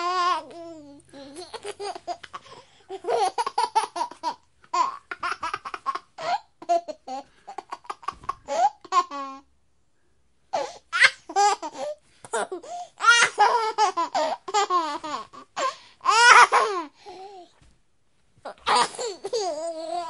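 A baby laughing in repeated high-pitched bursts. The laughter breaks off for about a second halfway through and again shortly before the end.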